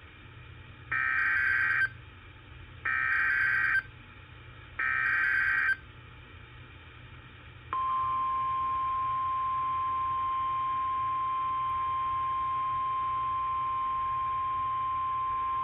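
NOAA Weather Radio alert tones: three short bursts of buzzy SAME digital data, about a second apart, then the steady 1050 Hz warning alarm tone, which starts about halfway through and holds unbroken.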